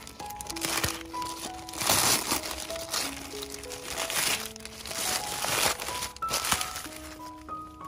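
Paper bag crinkling and tearing as it is cut with a knife and pulled off a hanging white bitter gourd, in several rustles, loudest about two seconds in and again around five seconds. Background music with a slow melody plays underneath.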